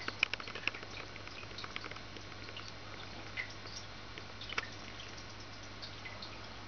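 Water trickling and dripping in a home aquarium, many small irregular drips and plinks over a steady hiss and a low hum.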